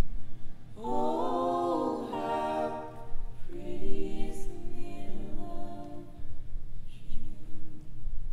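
Voices singing a cappella, without instruments: two long phrases of held notes and a short, fainter phrase near the end.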